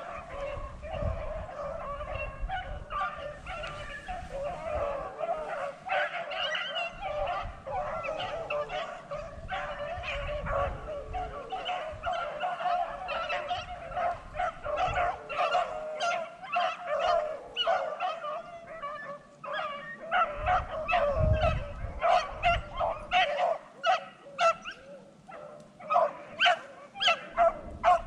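A pack of beagles in full cry, baying in overlapping voices as they run a rabbit's scent trail; from about twenty seconds in the calls come as short, separate barks, a few each second.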